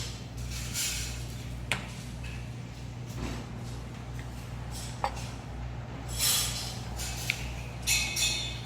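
Tableware clinking at a meal table, three sharp clinks a few seconds apart, with short rustling hisses in between over a steady low hum.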